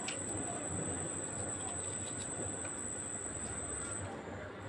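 Quiet steady background hiss with a thin, constant high-pitched whine, and a few faint light clicks from a small knife cutting and paring a tomato held in the hand.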